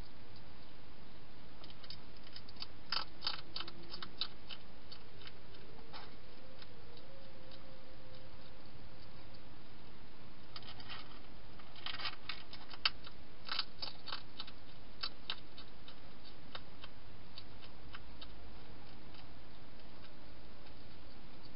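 Wild hedgehog crunching dry food: quick, irregular crackles in two spells, a couple of seconds in and again around the middle, over a steady background hiss.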